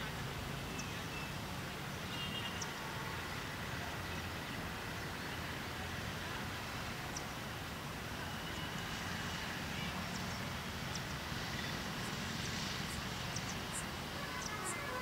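Open-air background noise: a steady low rumble with faint short high chirps now and then, more of them near the end.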